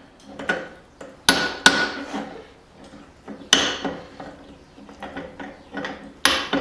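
Hand hammer blows on a slitting chisel driven into hot steel, cutting a slit through a forged hammer head. The blows come irregularly, a few heavy ones with a short metallic ring among lighter taps.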